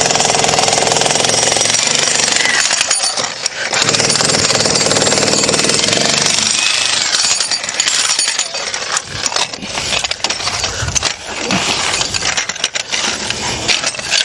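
Jackhammer hammering at masonry, running steadily for about eight seconds, then in shorter, broken bursts.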